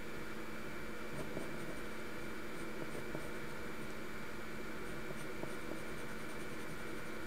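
Pencil scratching on paper in short, light sketching strokes, with small faint ticks as the tip meets the page, over a steady background hiss and hum.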